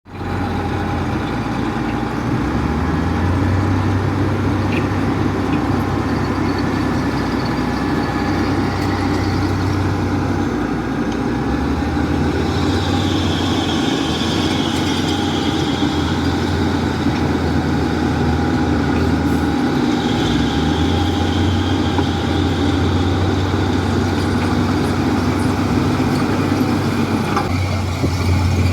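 Diesel engine of heavy earthmoving machinery running continuously, its low note rising and falling as the load changes. A higher whine joins for several seconds about halfway through.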